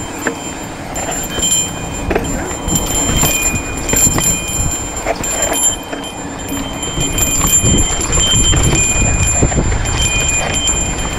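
Mountain bike rolling fast down a dry dirt trail: tyres crunching over dirt and stones, with the bike rattling and clicking over bumps, and wind rumbling on the camera microphone, heavier in the second half.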